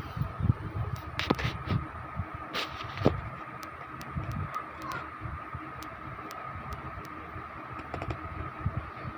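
Scattered clicks and light knocks of hands working on a television set, bunched in the first three seconds and again near the end, over a steady faint tone.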